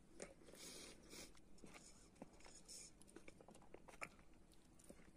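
Faint chewing of a piece of raw tomato, with scattered small clicks and wet mouth sounds.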